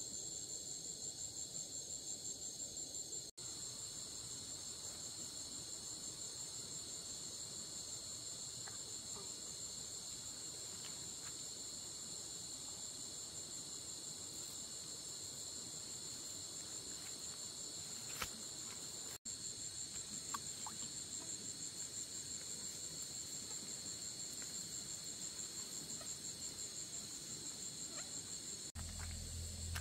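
Night-time chorus of crickets: a steady, high-pitched pulsing chirring, broken by two short drop-outs where the picture cuts. A faint low hum comes in near the end.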